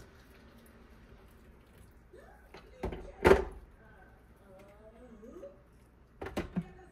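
Clunks of the glass jug and teapot of an electric two-tier tea maker being set back down: a pair of knocks a few tenths of a second apart near the middle, the second the loudest, then another short pair of knocks near the end.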